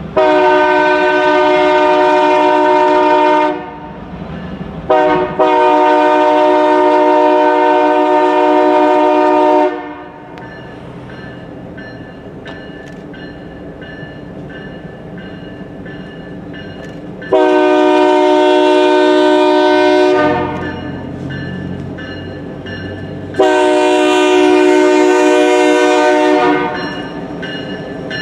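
Union Pacific GP38N diesel locomotive's multi-tone air horn sounding grade-crossing warnings as the train comes up the street: a long blast, a short one and another long one, then after a pause of several seconds two more long blasts. The train's lower rumble is heard between the blasts.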